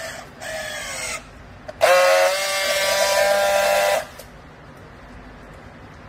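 Battery-powered handheld strapping tool working a plastic strap: a motor whine that falls in pitch as the strap is pulled tight, then after a short pause a louder, steady whine for about two seconds that stops abruptly as it seals the strap.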